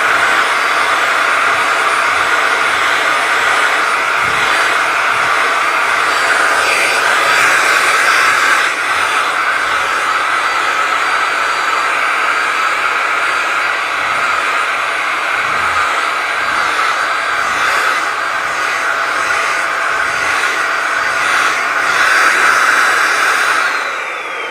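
Vacuum cleaner running steadily with a whining motor and rushing airflow; near the end the motor's pitch falls and the sound drops as it winds down.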